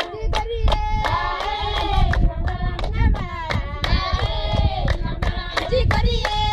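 A group of women and children singing together in unison, with steady rhythmic hand clapping.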